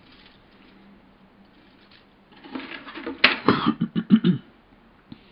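Plastic model-kit sprues clattering and rattling against each other and the cardboard box as they are handled. A burst of clicks starts about halfway in and lasts about two seconds.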